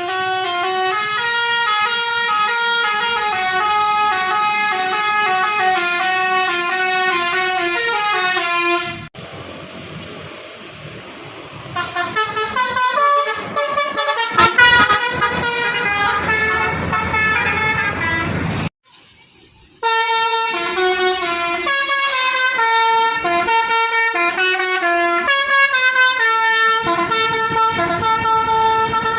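Basuri musical air horns on an intercity bus playing a tune in quick stepped notes sounded together as chords. The sound drops away about nine seconds in and cuts out briefly about two-thirds through. In between, the horn notes sound over a noisier street background.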